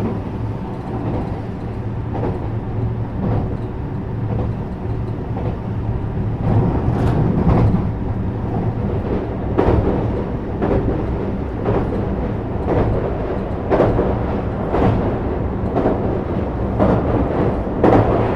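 JR West 321 series electric train running at speed, heard from on board: a steady rumble and motor hum with the clickety-clack of wheels over rail joints about once a second, growing a little louder in the second half.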